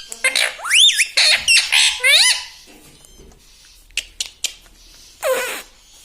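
Indian ringneck parrot calling: a run of high squawks that slide up and down in pitch over the first two seconds or so, a few short clicks around the middle, and one more call about five seconds in.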